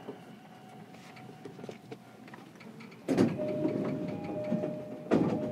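Inside a car of a JR East E233-series electric commuter train standing at a station: a quiet hum with faint steady high tones, then about three seconds in a sudden loud rush of noise with a steady tone over it, and a second rush about two seconds later, as the doors open on arrival.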